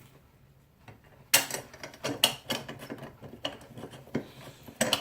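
Irregular sharp metallic clicks and clatter of tools and hardware being handled, starting about a second in, with the loudest knocks near the start, the middle and the end, over a faint low hum.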